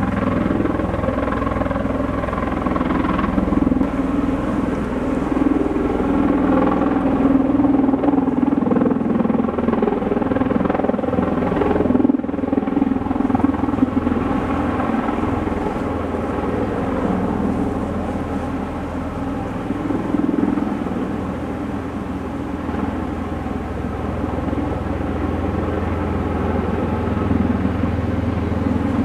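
MV-22 Osprey tiltrotor hovering low in helicopter mode: its two proprotors and turboshaft engines give a loud, steady drone with a low throb underneath.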